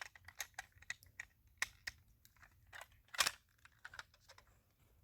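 Irregular small clicks and taps of diecast toy car kit parts being handled and fitted together, with one louder knock about three seconds in.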